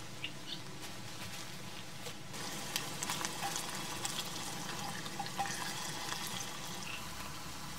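Chopped vegetables frying in a metal pot on a gas camping burner, a steady sizzling hiss that grows louder about two seconds in, with scattered small scrapes and clicks of a spatula stirring against the pot.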